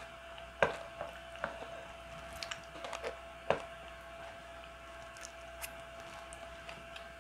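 Wooden spoon scooping thick porridge from a bowl: scattered light clicks and scrapes, the two loudest about half a second and three and a half seconds in, over a faint steady hum.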